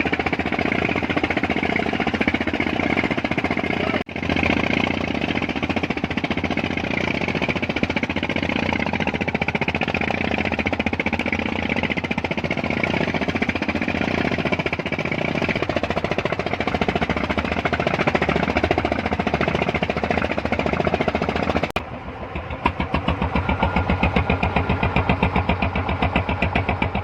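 A freshly repaired engine running on test, busy and loud, dipping for an instant about four seconds in. Near the end it settles into a slower, evenly pulsing idle.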